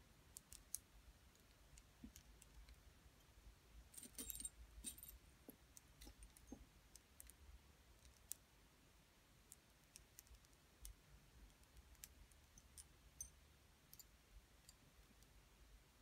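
Metal rings clicking against each other and against long fingernails as they are handled: faint, scattered small clicks and clinks, with a brief cluster of them about four seconds in.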